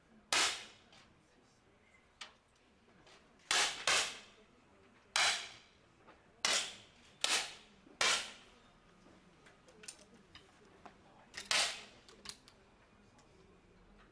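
10 m air pistols fired one shot each by several shooters in turn: about eight sharp pops at irregular intervals, two of them a split second apart, each with a short fading tail, and a few fainter clicks between them.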